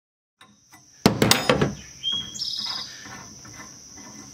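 A large steel combination wrench clanks down onto the truck tailgate in a quick run of sharp metal knocks with a brief ring, about a second in. A bird chirps shortly after, over a steady high insect drone.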